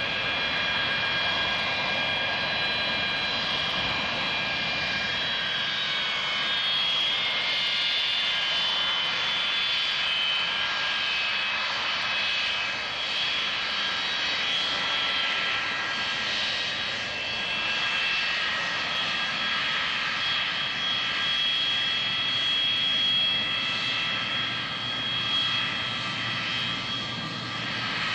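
Boeing 727's three rear-mounted Pratt & Whitney JT8D turbofans running as the airliner rolls along the ground past the listener: a steady rushing noise with several high whining tones over it, holding an even level with no surge of power.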